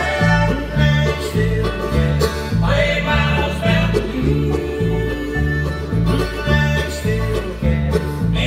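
Bluegrass band playing an instrumental stretch with no singing: upright bass, mandolin, acoustic guitar, fiddle and banjo. The bass keeps a steady beat of about two notes a second under quick, bright string picking.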